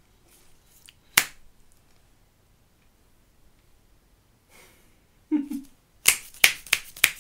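Sharp clicks or taps, as of objects being handled: a single one about a second in, then a quick run of them near the end, about four a second.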